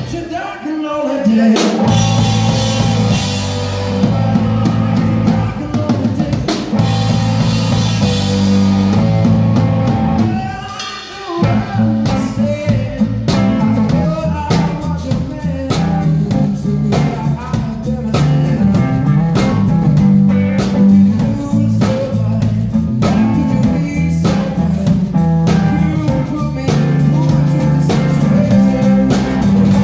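Live blues-rock band playing: electric guitar, bass and drum kit, with a man singing at times. The band briefly drops out twice, about a second in and again about eleven seconds in, before coming back in.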